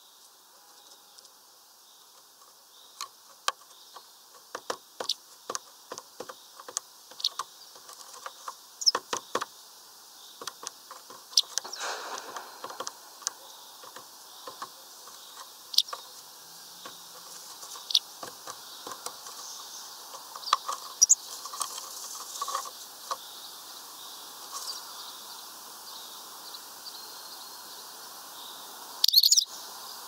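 Irregular sharp taps of a great tit pecking at seed on the wooden perches and feeder, thickest in the first half, with a few faint high bird chirps. Near the end comes a short loud rush, the great tit's wings as it flies off.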